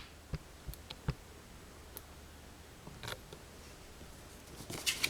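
Faint handling of a paper catalogue: a few soft clicks and taps in the first second or so, then paper rustling as a page is turned, loudest near the end.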